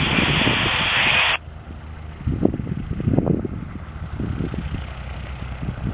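Radio static hiss from an aviation band receiver, ending abruptly about a second and a half in as the transmission drops. It is followed by wind gusting on the microphone over a low, steady hum.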